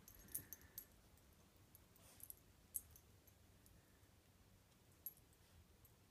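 Near silence, broken by a handful of faint, short clicks and light rustles as a small dog noses about in a pile of clothes on the floor.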